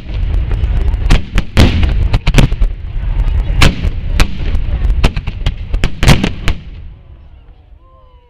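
Aerial firework shells bursting in quick succession: a rapid series of loud bangs over a continuous low rumble, dying away near the end.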